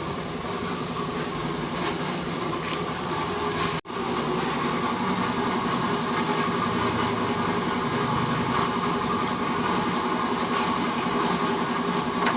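Steady mechanical running noise with a constant hum, cut off for an instant about four seconds in.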